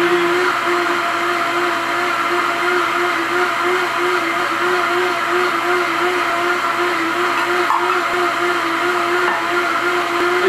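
Vitamix Pro 750 blender running on high speed, a steady, even motor whine as it purées cashews, almond milk and bell pepper into a liquid sauce.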